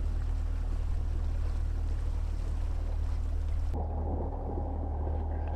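Tiller outboard motor running steadily with the boat under way, a low hum under wind and water rush. A bit over halfway through, the hiss cuts off suddenly and a duller, steady hum carries on.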